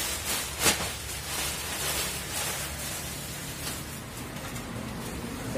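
A large clear plastic bag rustling and crinkling as it is pulled over and around a laser printer, with one sharp crackle about two-thirds of a second in.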